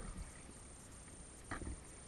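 Kayak paddle strokes: the blade dipping and splashing into the water twice, about a second and a half apart, over a steady low background of water noise.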